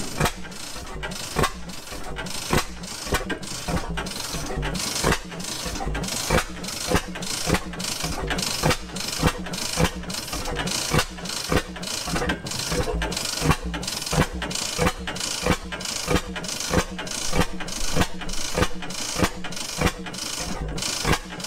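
Circa 1926 Reid Type A two-cycle gas engine running steadily, firing a sharp, evenly spaced exhaust pop a little under twice a second.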